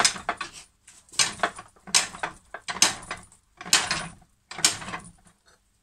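Metal clanking at a cast-iron fly press: about six sharp metallic knocks with a short ring, one roughly every second, as the steel hook is set under the punch to stamp a touch mark.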